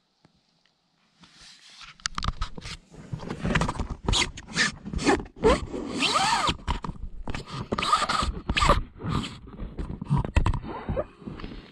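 Handling noise from a camera being repositioned and set down on the floor of an inflatable kayak: dense scraping, rubbing and clicking of hand and mount against the vinyl, starting about a second in, with a squeak near the middle.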